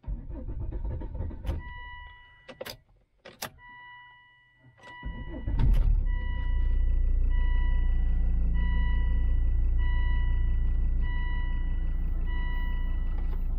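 Car interior: a few sharp clicks and a repeating electronic beep, then the Volvo V70's engine cranks and starts about five and a half seconds in and settles into a steady idle, the beeping still going.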